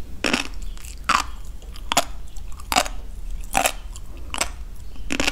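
Close-miked crunchy chewing: a crisp crunch of food between the teeth about every 0.8 seconds, seven in all.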